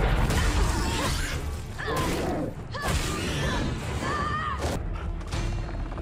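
Film fight-scene sound mix: a run of sharp crashes and hits, with short high, wavering cries at about one-second intervals, over a low droning score.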